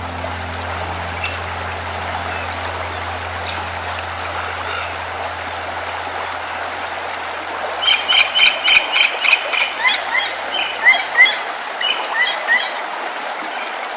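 Stream flowing steadily, with a low hum fading out over the first half. From about eight seconds in, a bird calls in a quick run of repeated chirps, then scattered chirps, for about four seconds.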